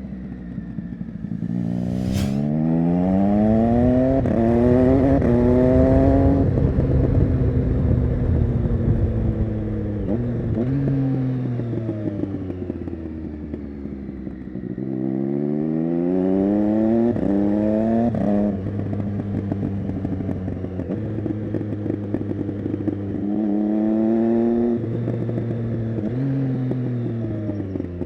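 Triumph Street Triple 675's three-cylinder engine through an SC-Project Conic exhaust, accelerating hard three times with the pitch climbing through gear changes. Between the pulls it falls back off the throttle, with popping and crackling from the exhaust on the overrun. A sharp crack about two seconds in.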